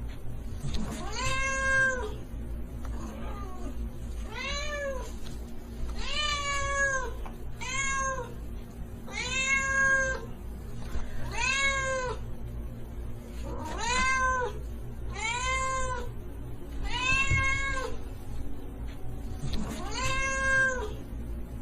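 A cat meowing over and over, about one meow every one and a half to two seconds, each call rising and then falling in pitch. A steady low hum runs underneath.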